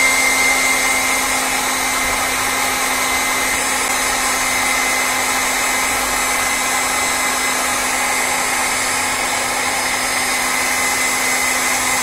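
Electric heat gun running steadily, a rush of air with a steady whine on top, blowing hot air to shrink heat-shrink tubing over a soldered cable joint.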